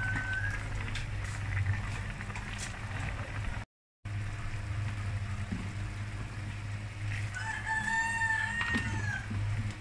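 A rooster crowing once near the end, a single drawn-out call of about two seconds, over a steady low hum.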